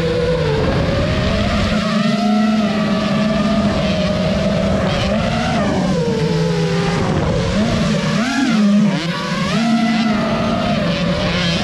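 Racing drone's electric motors and propellers whining, the pitch swooping up and down with the throttle, with a sharp rise and drop near the end.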